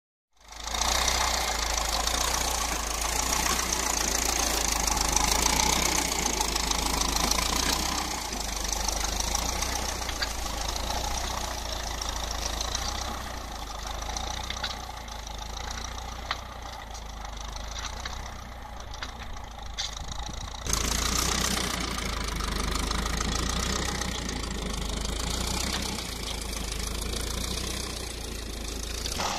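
Ferguson TEF-20 tractor's four-cylinder diesel engine running steadily under load as it pulls a tine tiller through stubble. The sound changes abruptly and grows louder about two-thirds of the way through.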